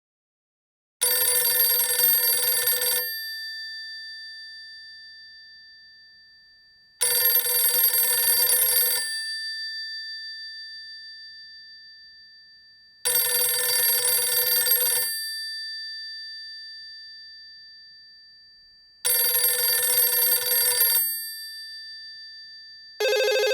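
Telephone bell ringing: four rings of about two seconds each, starting about six seconds apart, each leaving a bright tail that fades slowly. Near the end a different, steady ringtone starts.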